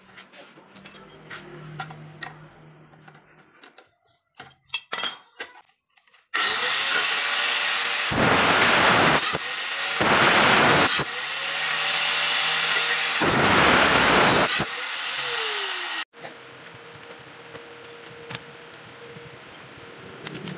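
A power tool motor running, with three louder, harsher stretches as it works. It cuts off abruptly, leaving a quieter steady hum.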